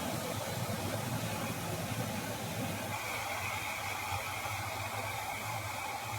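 Steady rushing of a waterfall, with a thin high steady tone joining about three seconds in.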